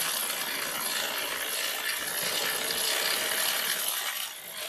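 Heimerdinger ratchet clicking rapidly and without a break as it turns the rotating engine stand, slowly rolling the engine over.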